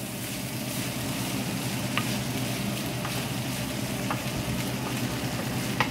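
Chopped roast pork sizzling as it fries in its own fat in a nonstick pan, with a wooden spatula stirring through it and lightly knocking the pan a couple of times.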